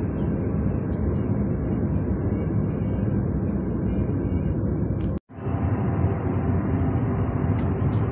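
Steady road and engine noise inside a moving car's cabin at motorway speed. It drops out completely for a moment about five seconds in, then resumes.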